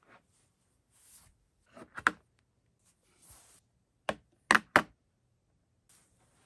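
A few short, sharp knocks: a couple just before two seconds in, then three louder ones between about four and five seconds.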